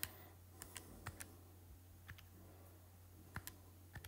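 Faint, irregular clicks of calculator keys being pressed one at a time, about ten presses, over a faint steady low hum.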